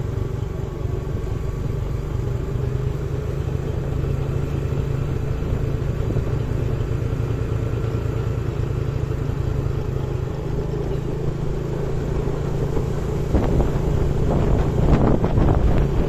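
Motorcycle engine running at a steady low hum while riding along a road, with road and wind noise over it. The noise grows louder and choppier in the last few seconds.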